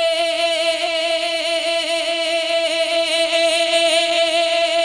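Naat singing: one voice holding a single long note without words, wavering slightly in pitch.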